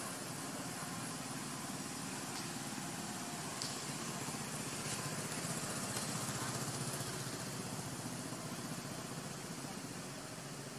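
Steady low hum of an engine running, under a constant outdoor hiss.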